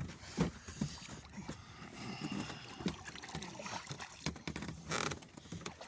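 Water splashing and sloshing in irregular bursts as a large fish is put back into the water, with a louder splash about five seconds in.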